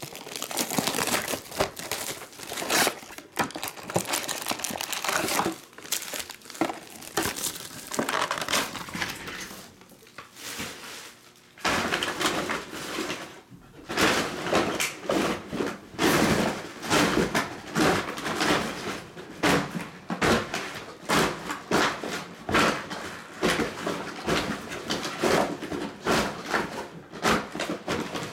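Plastic shrink wrap crinkling and tearing in a long run of uneven strokes as sealed trading-card boxes are unwrapped by hand, with a quieter stretch about ten seconds in.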